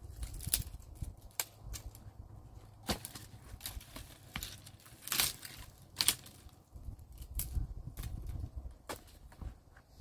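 Dry twigs and brush snapping and crunching in irregular cracks, roughly one a second, the sharpest about halfway through, over a low rumble.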